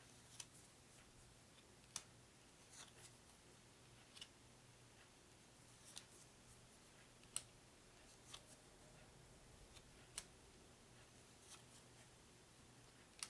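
Game cards laid down one at a time on a table: a faint, sharp tap or snap about every second and a half, with a few softer swishes, over a steady low hum.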